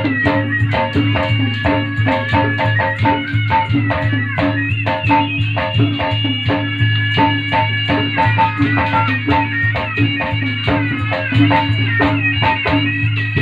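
Pencak silat accompaniment music: a high reed pipe plays a winding, gliding melody over a fast, even drum beat and a steady low tone.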